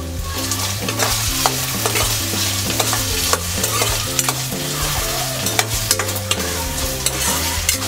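Diced potatoes sizzling in hot ghee in a kadhai while a steel spoon stirs them, with scrapes and clicks of the spoon against the pan.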